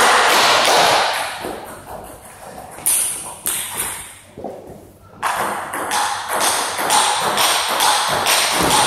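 Table tennis ball in a rally, clicking off the table and the players' bats at about three hits a second, starting about five seconds in after a few single taps.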